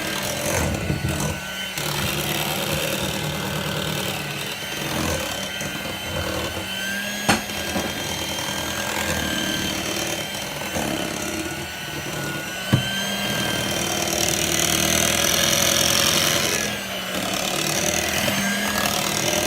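Electric hand mixer running steadily in cake batter, its motor giving a constant whine, with two sharp clicks along the way.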